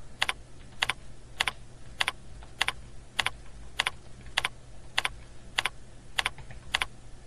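Computer keyboard typing: single sharp keystrokes at an even pace, about two a second, as single-digit numbers are keyed into cell after cell of a data sheet.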